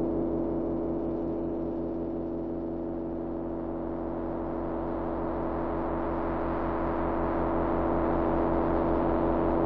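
Dark ambient drone score: low held tones ringing together over a pulsing low throb, dipping a little and then swelling toward the end.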